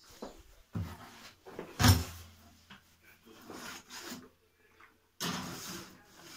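A few knocks and bumps, like a cupboard or drawer being shut or something set down on a kitchen counter. The loudest is about two seconds in, and a short rustling follows about five seconds in.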